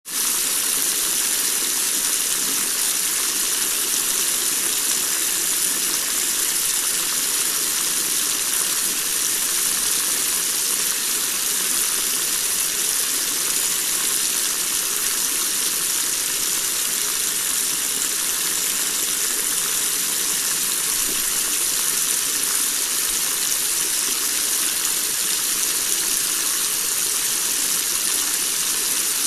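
Steady rush of water, heavy rain and floodwater, heard as an even, unbroken hiss.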